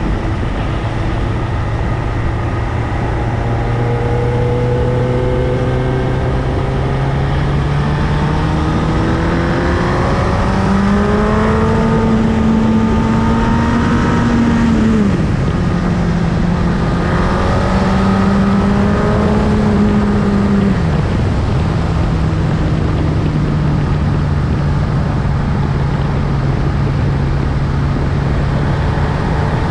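Motorcycle engine running under steady wind rush: its pitch climbs and holds, falls off sharply about halfway through, climbs again and falls off once more a few seconds later, then runs steady.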